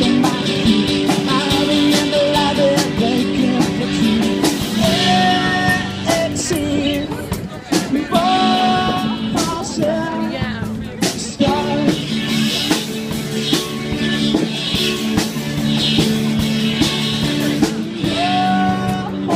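Rock-style music with guitar, a steady beat and singing.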